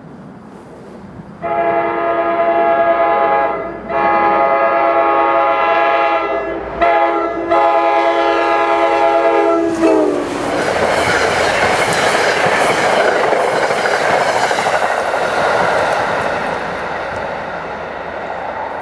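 Diesel locomotive air horn sounding the grade-crossing signal: long, long, short, long. Its pitch drops as the train passes, and the horn gives way to the loud rush and rail clatter of the train going by.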